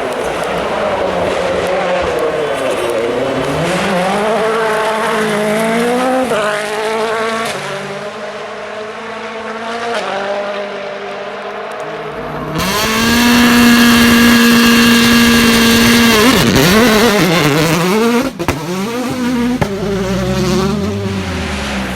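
World Rally Car engines revving hard, the pitch climbing and dropping repeatedly as the car changes gear. About twelve and a half seconds in, a louder engine holds a steady high pitch for about three seconds, then drops and revs up again, with a sharp crack near 18 seconds.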